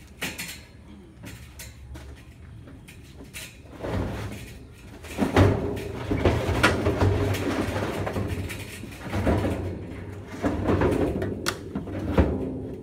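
A 55-gallon metal diesel drum scraping and rumbling as it is walked on its bottom rim across a pickup truck bed, in long grinding stretches from about four seconds in, with a few sharp knocks.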